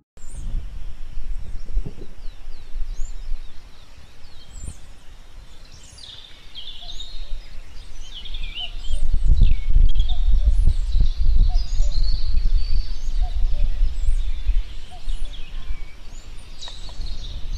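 Many small birds chirping and calling, over an irregular low rumble of wind on the microphone that swells strongest about halfway through.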